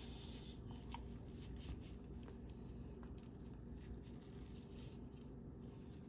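Faint soft squishing and a few light ticks of gloved fingers pressing garlic cloves into slits in a raw leg of lamb, over a low steady hum.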